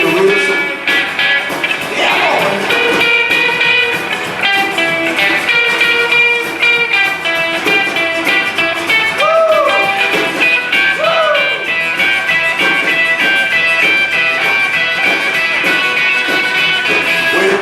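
Rockabilly band playing live: guitars, upright bass and drums, with a picked guitar line that bends two notes up and back down about nine and eleven seconds in.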